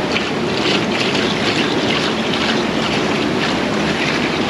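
Antifreeze coolant being poured from a jug into a bucket that already holds water, a steady splashing pour.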